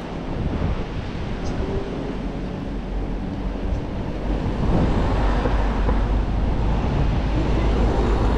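Seaside ambience of surf, with wind buffeting the microphone and a low rumble that grows louder about halfway through.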